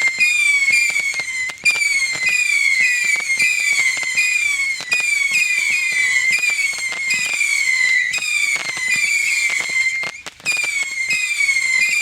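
Fireworks going off in a rapid run of whistles, each shrill whistle dropping in pitch, two or three a second, with sharp crackling pops between them. There is a brief lull about ten seconds in.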